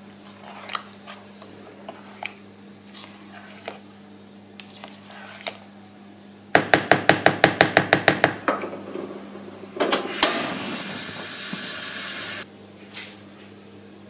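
Silicone spatula stirring thick strawberry jam in a non-stick pot, with faint scrapes and soft ticks. Midway comes a quick run of about fourteen loud clicks, then a sharp knock and a loud hiss lasting about two seconds that cuts off suddenly.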